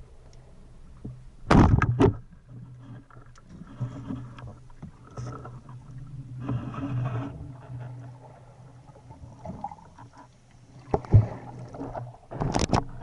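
Water sloshing and splashing around the camera at sea over a steady low hum, with louder splashes about a second and a half in and again near the end.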